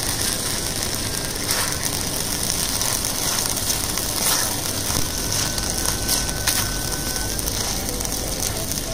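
Blended spice paste sizzling and crackling steadily as it fries in oil in a wok, stirred with a wooden spatula.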